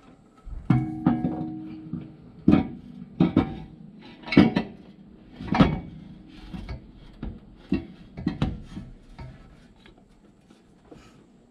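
Polished steel header tubes clanking and knocking against the engine and chassis as they are worked into place, a string of irregular sharp knocks with a brief metallic ring, loudest in the first half.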